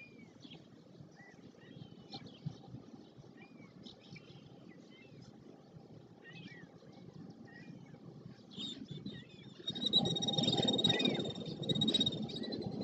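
Small birds chirping in short, rising and falling calls scattered throughout. About ten seconds in, a louder low rumble comes in with a steady high whine over it for a couple of seconds.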